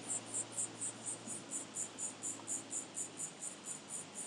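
An insect, such as a cricket, chirping steadily in a high-pitched, even rhythm of about four chirps a second.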